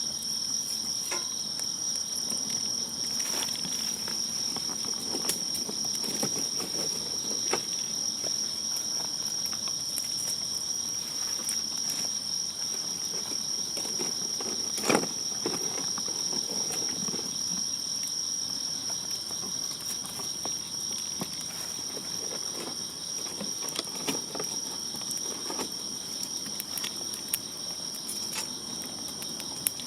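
Insects chirring in a steady high-pitched drone, with scattered crackles and pops from a small campfire of leaves and twigs, one pop louder than the rest about halfway through.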